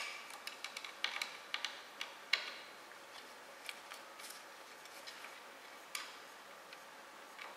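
Small sharp clicks and ticks of a driver turning a bed-levelling screw on a 3D printer's heated bed, coming fast and irregular for the first two and a half seconds, then only a few now and then.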